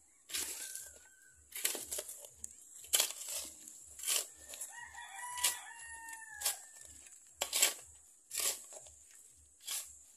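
A rooster crowing once, one long call near the middle. It sits among repeated sharp scrapes and rustles of hands working loose soil, which are the loudest sounds, over a steady high-pitched hiss.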